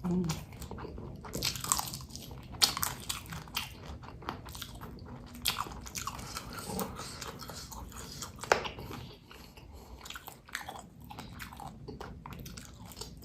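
Close-up biting and chewing of raw cabai gendot chilies: a string of irregular crisp crunches as the fleshy peppers are bitten through and chewed, louder bites about 2.5 and 8.5 seconds in.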